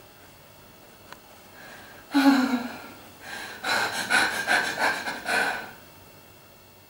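A woman's sharp gasp about two seconds in, followed by a couple of seconds of quick, pulsing breaths with a thin whine running through them, about five pulses a second.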